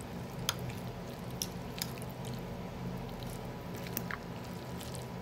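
Utensil stirring wet cooked noodles in a crock pot: soft wet squishing with a few scattered faint clicks, over a steady low hum.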